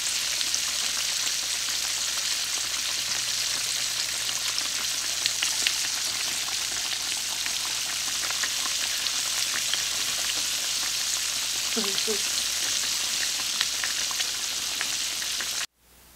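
Flour-coated chicken pieces deep-frying in hot oil in a cast iron skillet: a steady crackling sizzle with a few light clicks scattered through it. The sizzle cuts off abruptly near the end.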